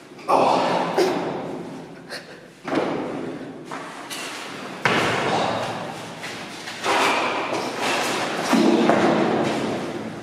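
A series of heavy thuds and bangs, about five of them, each starting suddenly and dying away slowly in the echo of a large, empty room.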